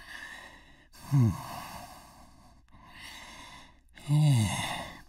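A person sighing: a series of breathy exhales, two of them voiced and falling in pitch, about a second in and about four seconds in.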